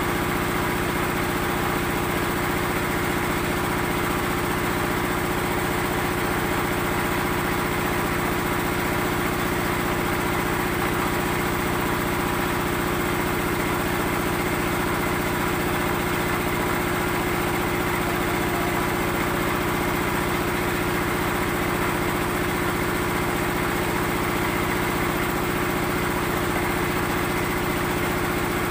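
Small engine of concrete block-making machinery running steadily at constant speed, with a strong even hum and no change in pitch.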